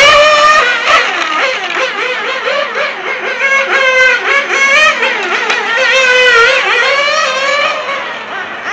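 A 1/8-scale radio-controlled car's motor running hard as it laps the track, its high-pitched note rising and falling over and over with the throttle through the corners. It fades somewhat near the end as the car moves away.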